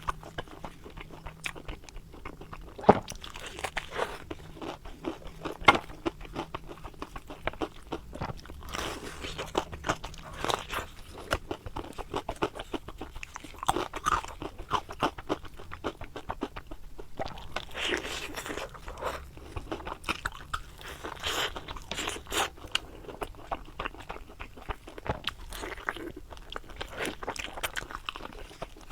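Someone biting into and chewing crispy deep-fried stuffed eggplant boxes (qiehe), with many sharp, irregular crunches one after another.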